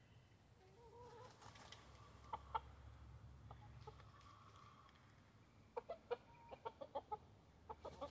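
Backyard chickens clucking softly: a few calls about a second in, then a quick run of short clucks, several a second, near the end.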